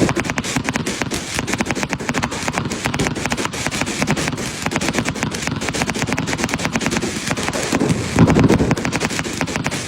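Fireworks crackling in a fast, continuous stream of small pops, with a heavier, louder burst about eight seconds in.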